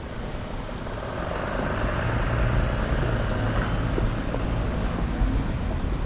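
A small van drives past close by, its engine and tyres growing louder from about a second in and loudest mid-way, over steady street noise.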